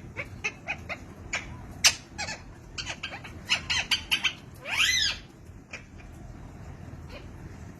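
Indian ringneck parrot making a quick string of short chirps and clicks, then one louder, longer warbling call with wavering pitch about five seconds in.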